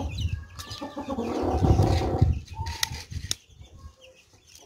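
Chickens clucking, with a loud rustling flurry about a second in. Two sharp clicks follow near three seconds, as the metal seal of a small vaccine vial is pried open.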